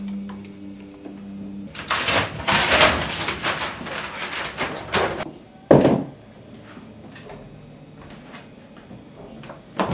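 A film projector's motor humming, cut off about two seconds in, followed by a few seconds of loud rustling and clatter and then one heavy thump like a door slamming; two more knocks come at the very end.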